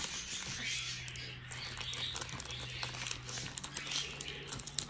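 Slime being squeezed by hand out of a plastic Ziploc bag: the bag crinkling and the slime squelching, with many small irregular clicks and crackles.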